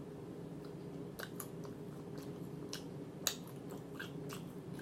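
Close-miked chewing of food, with scattered wet mouth smacks and clicks starting about a second in, over a steady low hum.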